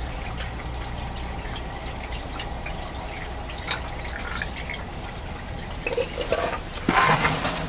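Green 50-50 antifreeze pouring from a plastic drain pan into a radiator filling funnel: a steady trickle and splash of liquid, louder for a moment near the end.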